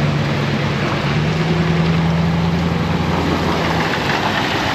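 Johnson outboard motor running steadily with a newly replaced starter, just after starting. A steady engine note drops out near the end, leaving a lower hum.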